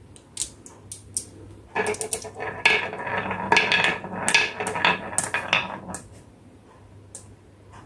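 Glass marbles rolling down a carved wooden wavy track, rumbling on the wood and clicking against the wood and each other. A few single clicks come first, then a dense run of rolling and clacking from about two seconds in until about six seconds, after which only a few faint clicks remain.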